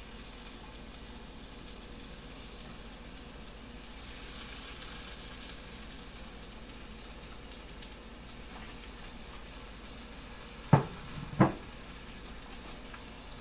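Flour-dredged chicken tenders sizzling in hot oil in a cast iron skillet, a steady frying hiss. Two sharp knocks about a second apart near the end.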